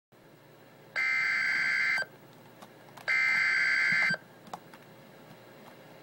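Emergency Alert System header bursts: two one-second blasts of buzzy digital data tones about a second apart, the coded start of a severe thunderstorm warning alert.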